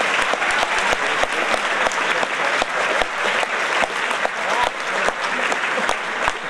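Audience applauding, a dense steady patter of many hands clapping.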